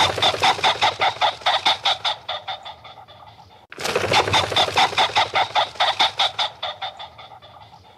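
Chicken clucking rapidly, about five clucks a second, in two runs. Each run starts loud and fades away over a few seconds; the second begins about halfway through.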